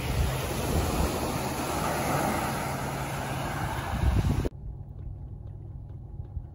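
Small waves washing onto a sandy beach, with wind buffeting the microphone in gusts. About four and a half seconds in, this cuts off suddenly to the quieter, steady low rumble inside a car's cabin.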